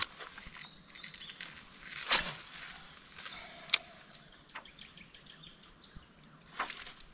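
Quiet open-air ambience with faint bird calls. About two seconds in comes a brief swish, then a single sharp click, the loudest sound, from a spinning rod being cast and the reel worked, with a few lighter ticks after it.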